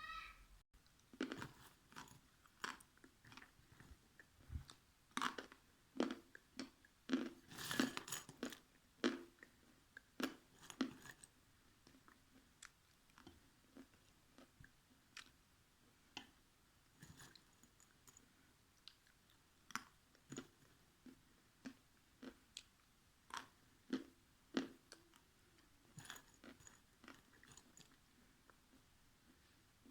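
A person biting and chewing pieces of dried Ural clay, crisp crunches coming thick and fast for roughly the first ten seconds, then more sparsely.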